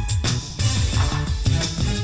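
Tamil film song music with a steady beat and a moving bass line.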